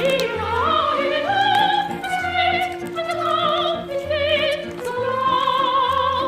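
Operatic soprano singing held high notes with wide vibrato over orchestral accompaniment, with a low bass note pulsing about once a second.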